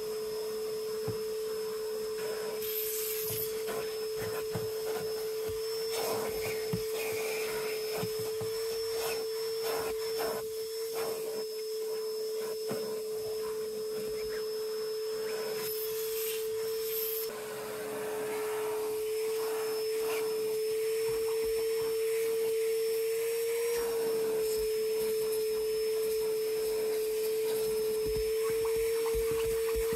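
Vacuum motor running steadily with a constant whine, with the nozzle scraping, knocking and rubbing against surfaces. The sound dips briefly a little past halfway, then carries on slightly louder.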